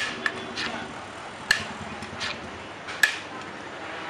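A metal serving scoop clinking against the rim of a large metal biryani pot as rice is scooped out. Three sharp clinks, about a second and a half apart, with lighter taps between them.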